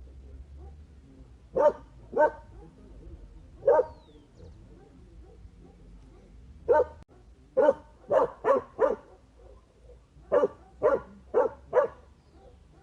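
A dog barking: about a dozen short, sharp barks in irregular groups. There are two barks, then one, then a quick run of five, then four more.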